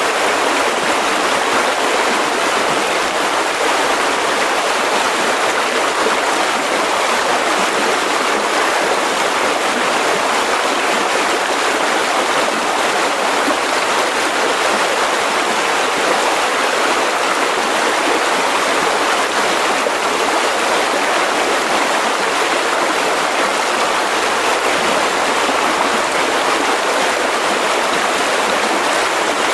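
Mountain river rushing over rocks: a steady, unbroken rush of flowing water.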